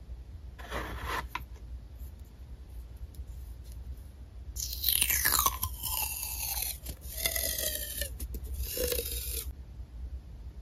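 Washi tape being peeled off its roll in several long pulls: a crackly, rasping rip whose pitch slides as the tape unwinds, from about four and a half seconds in to near the end. A brief rustle of handling comes just under a second in.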